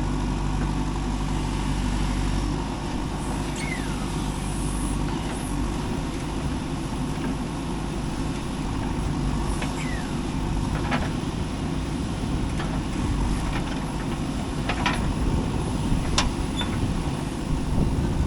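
Diesel engine of a JCB 3DX backhoe loader running steadily while digging and loading mud. A few sharp clanks come in the second half.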